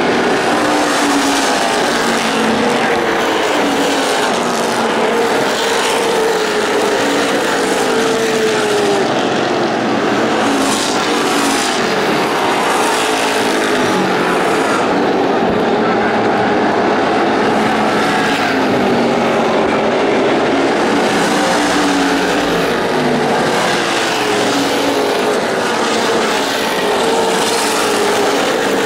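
A field of NASCAR Late Model stock cars racing, their V8 engines overlapping in a continuous loud drone. The pitch keeps rising and falling as the cars pass, lift into the turns and accelerate out.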